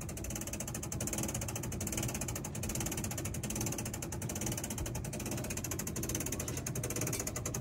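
Hand-cranked material lift's winch clicking rapidly and steadily as it is cranked to move the equipment.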